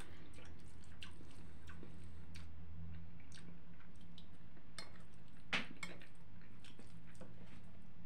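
Wet mouth sounds of a person chewing buckwheat with ketchup: a scatter of small smacks and clicks, with one louder smack about five and a half seconds in, over a low steady hum that fades about three seconds in.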